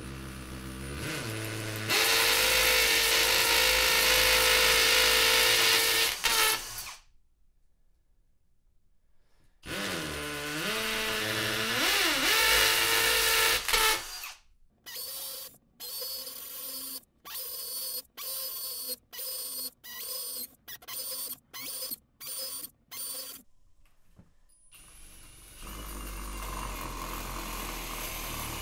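Power drill with a long masonry bit boring pilot holes into cinder block. It spins up and drills in two long loud runs, then comes a quick series of short bursts about two a second. Near the end comes a steadier, quieter running sound as a hole saw is tried against the block.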